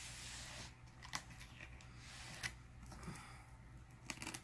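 Box cutter blade slicing through packing tape and cardboard, a faint scratchy cutting sound with a few sharp clicks, then a quick run of clicks near the end.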